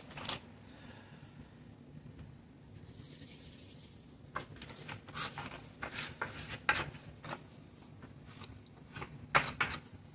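Hands and tools handling clay: a run of short clicks and scrapes, with a brief hiss about three seconds in, over a low steady hum.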